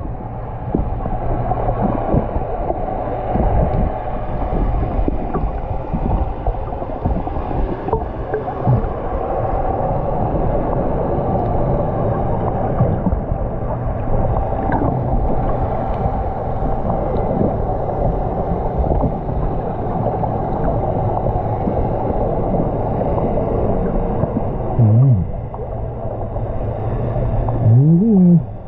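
Steady rushing, gurgling water noise picked up by a camera held underwater. Twice near the end there is a short muffled vocal sound that rises and then falls in pitch.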